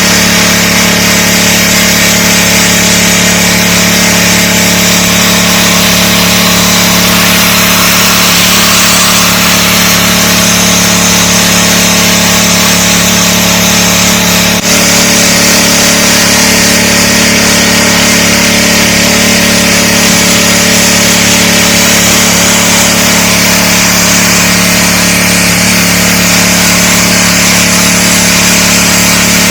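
DeWalt 3600 psi gas pressure washer running steadily at full throttle, its engine's even hum under the loud hiss of the high-pressure spray on concrete. There is a momentary break about halfway through.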